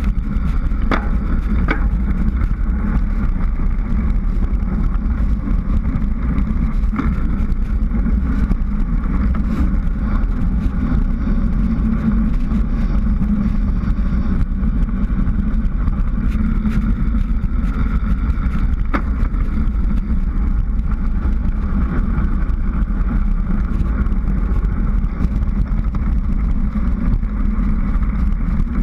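Steady wind rumble on a bicycle-mounted GoPro's microphone at speed on a downhill road descent, with scattered sharp clicks.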